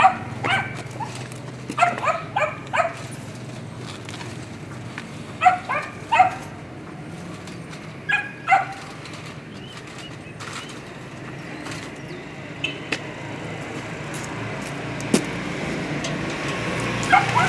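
A dog barking in short runs of two to four barks every few seconds, with a longer pause in the middle.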